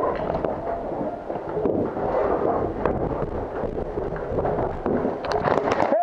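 A dense, crackling run of pops and knocks, with a cluster of sharp cracks about five seconds in.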